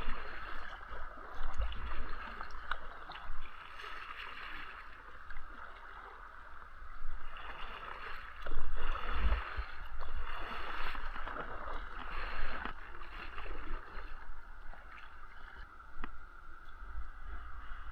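Water splashing and sloshing around a kayak, rising and falling with paddle strokes, with gusty low rumbles of wind on the microphone.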